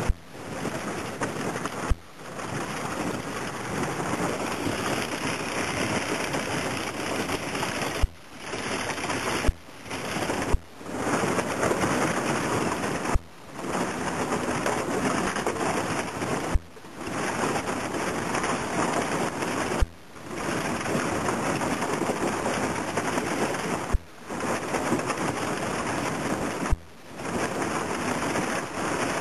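Thin sheet ice, 2 to 2.5 inches thick, crunching and crackling against the bow of a small boat pushing through it, a steady rain-like hiss. It is broken about nine times by a sharp click and a moment's quiet.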